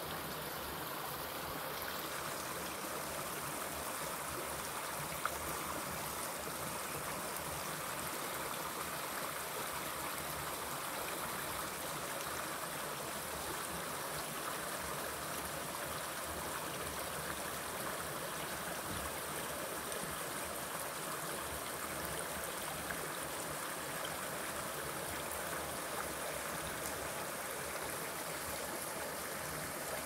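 Shallow rocky creek flowing over stones: a steady rush and trickle of water.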